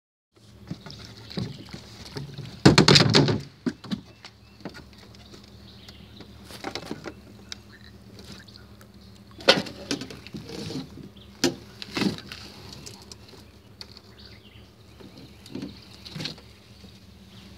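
Knocks and rattles of fishing gear and a landing net against a metal boat, with a longer loud clatter about three seconds in and single sharp knocks later, over a steady low hum.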